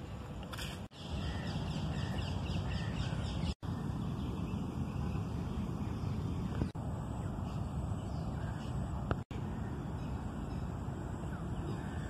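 Outdoor park ambience: a steady low background rumble with birds calling, including crow-like caws, mostly in the first few seconds. The sound cuts out abruptly for an instant four times.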